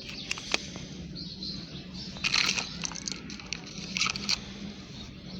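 Handling noise: a few light clicks in the first second, then two short crackling rustles about two and four seconds in, over a steady low hum.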